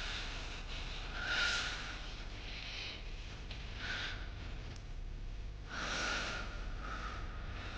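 A person's breathing: a few breathy exhales or sniffs, about a second and a half in, at about four seconds and at about six seconds, over a steady low hum.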